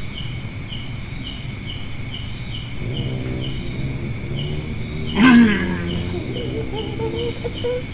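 Crickets and other night insects: a steady high drone with an even chirp about twice a second. A person's voice comes over it, low at first, then a short loud cry about five seconds in, then a wavering voice near the end.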